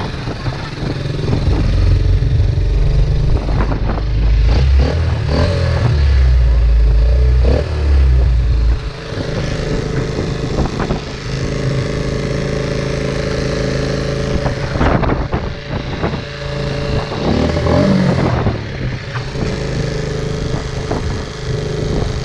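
Small off-road vehicle's engine running steadily, with a heavy low rumble for the first nine seconds or so and occasional clattering knocks.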